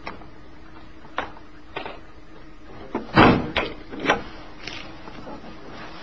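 A car's trunk lid being shut, closing with a thud about three seconds in. A few light clicks and knocks come before and after it.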